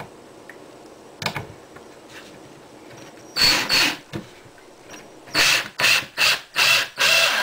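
Ryobi 18-volt cordless drill driving a two-and-a-half-inch deck screw into wood, its motor whining in short bursts: one burst in the middle, then about five quick bursts near the end as the screw is sunk. A small click comes about a second in.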